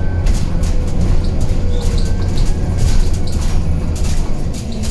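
Inside a Scania Citywide 12LF CNG city bus under way: a steady low rumble from its Scania OC09 compressed-natural-gas engine and the road, with frequent light rattles and clicks throughout.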